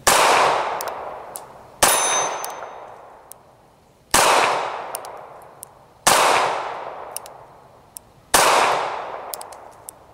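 Taurus TCP .380 ACP micro pistol firing five shots, about two seconds apart. Each shot is a sharp crack followed by a long echoing tail.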